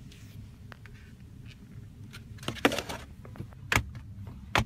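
Handling noise in a car cabin: a brief rustle and a couple of sharp clicks over a low steady hum.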